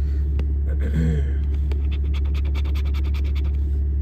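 A coin scratching the latex coating off a lottery scratch-off ticket in quick back-and-forth strokes, about ten a second, for nearly two seconds, over a steady low hum.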